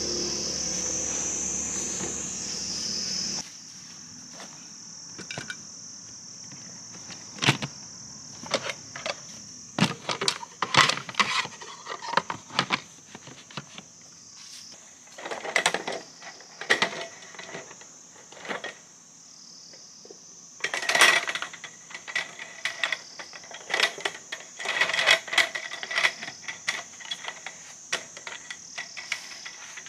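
A louder steady low noise cuts off about three seconds in, leaving a steady high insect chorus under irregular metallic clinks and knocks of gear or utensils being handled.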